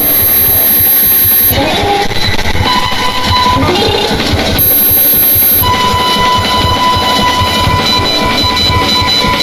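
Emergency alert system (EAS) alarm audio: loud, harsh noise with steady electronic tones laid over it. The tones change abruptly about a second and a half in and again around five seconds in.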